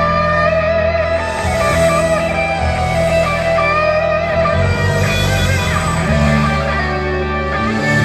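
Rock band playing an instrumental passage, electric guitar to the fore with bending notes over a steady bass line.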